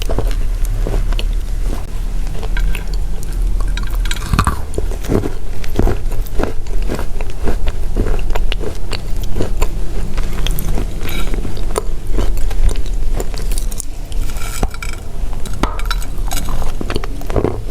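Dusty chalk tiles being crushed: a dense, irregular run of dry crunches and cracks, with sharper snaps now and then as pieces break and crumble.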